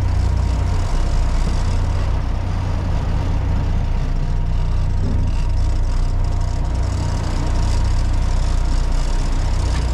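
A sportfishing boat's engine running steadily, a constant low drone with a faint hiss over it.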